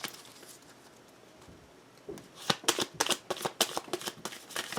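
A deck of tarot cards being shuffled by hand: a quick run of card clicks and flutters that starts about two seconds in.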